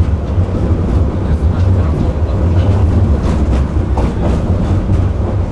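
A tram in motion heard from inside the passenger car: a steady low rumble of the wheels on the rails and the running gear.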